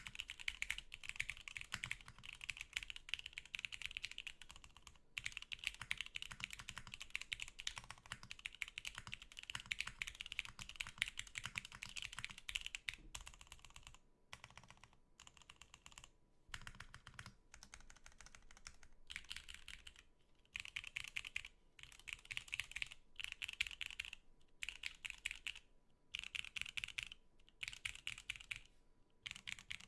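Typing on an Etar87 mechanical keyboard with a polypropylene plate: a steady stream of keystrokes for the first half, then shorter runs of typing with brief pauses between them from about halfway in.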